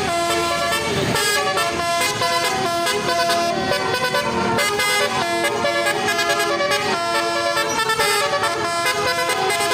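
Basuri multi-tone bus horn playing a tune, a continuous run of held notes that step from one pitch to the next.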